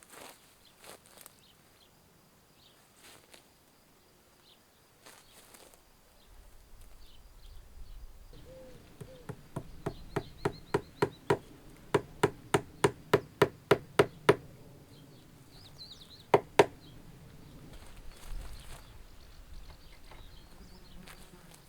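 A rapid, even run of sharp knocks, about three a second, growing louder over about five seconds, then a pause and two more knocks in quick succession, over faint outdoor background noise.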